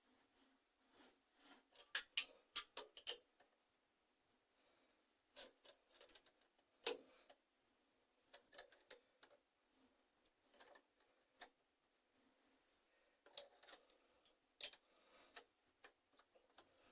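Scattered metallic clicks and light clinks of hand tools and metal fittings being handled and tightened during mixer tap installation, irregular, a few louder knocks about two seconds in and about seven seconds in.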